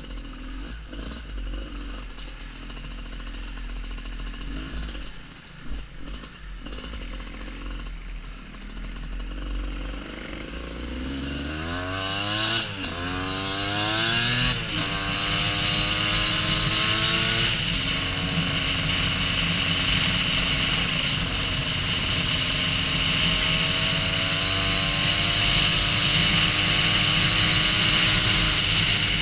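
Husqvarna WR250 two-stroke enduro motorcycle engine, low and quiet for the first ten seconds or so. Then it accelerates hard, rising in pitch through several gear changes. From about eighteen seconds in it holds a steady, slowly climbing speed.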